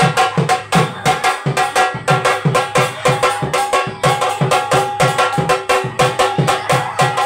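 Folk dance music: a barrel drum beaten by hand in a quick, steady rhythm of about three low strokes a second, with a held melodic line sounding over it.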